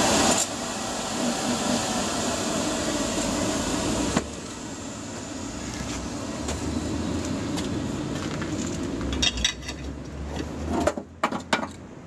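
Electric blower forcing air into a wood-fired brick furnace, running with a steady whirring hum that cuts off sharply about four seconds in, leaving a low rumble. Near the end, a few sharp metal clanks as the crucible is lifted out of the furnace.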